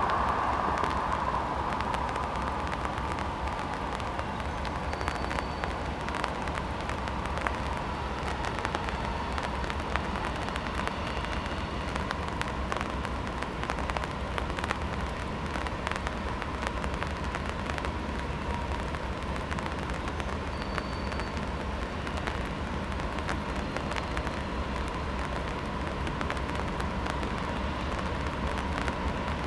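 Diesel-electric freight locomotive approaching, a steady low rumble under an even hiss with frequent faint crackles.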